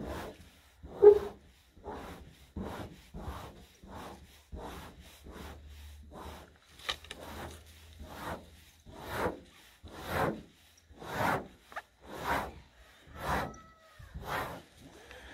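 Fingertips scraping through thick frost on a smooth hard surface: a series of dry, rasping strokes. They come quickly at first, then about one a second and louder in the second half.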